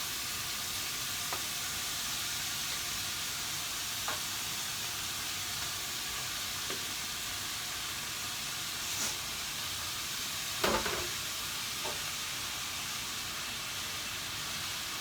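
Steady sizzling of a spicy sauce cooking in a pot on the stove, with a few light knocks from the pot and utensils as vegetables go in. The loudest knock comes about ten and a half seconds in.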